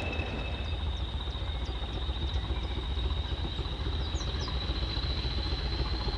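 English Electric Class 20 diesel locomotive's eight-cylinder turbocharged engine working as it approaches hauling coaches: a steady low rumble under a high turbocharger whistle that rises slightly near the end.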